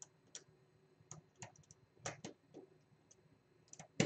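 Light, irregular clicks and taps of fingers handling wires and resistor leads at a plastic screw terminal strip, with one sharper click near the end.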